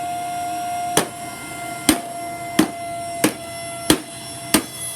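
A Shark Rotator vacuum cleaner being struck hard six times in a steady rhythm, about two-thirds of a second between blows, while a steady high whine from the machine runs on and fades out near the end.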